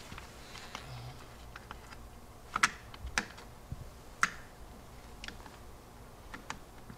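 Sharp clicks and light taps of a scooter front wheel guard and its screw being jiggled against the front fork to line up the screw hole, with three louder clicks in the middle and lighter ticks around them.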